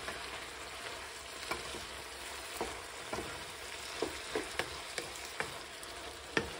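Shrimp frying in butter with a steady sizzle in a frying pan, while a wooden spatula stirs them, scraping and tapping against the pan every second or so.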